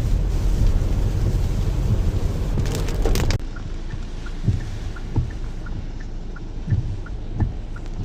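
Steady low rumble of road and wind noise, as heard while driving in the rain. About three and a half seconds in it drops sharply to a quieter hum, with a steady light ticking about three times a second and a few soft low thumps.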